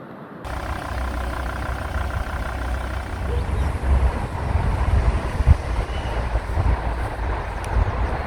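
Car cabin noise while driving: a steady low engine and road rumble, with one short knock about five seconds in.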